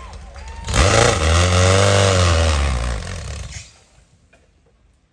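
Off-road race buggy engine revving hard: its pitch climbs, then sweeps back down over about three seconds, and the sound falls away sharply just before four seconds in.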